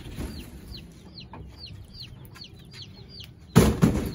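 Chicks peeping: short, high chirps falling in pitch, about three a second. About three and a half seconds in, a few loud knocks as a wooden chick cage is set down on the ground.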